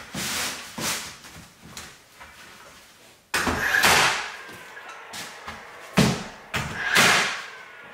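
DeWalt cordless nailer driving 1.5-inch nails into a wooden siding board: several sharp shots a second or more apart, some followed by a brief whir.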